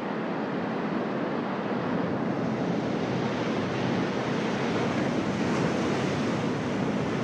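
Ocean surf breaking and washing over lava rocks, a steady rushing noise that swells a little in the middle.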